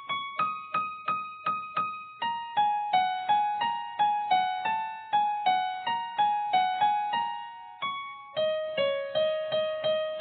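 Background music: a keyboard plays a slow melody of single struck notes, about three a second, each ringing away before the next, with the tune stepping gradually lower in pitch.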